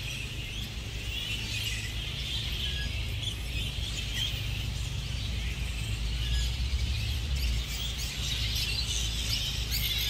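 Grey-headed flying fox colony at its roost calling: a continuous mass of overlapping high squeaks and chatters, over a steady low rumble.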